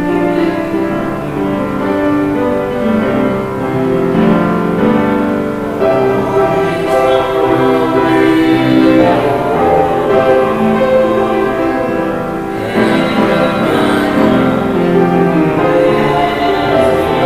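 Slow instrumental keyboard music, with held chords that change every second or two.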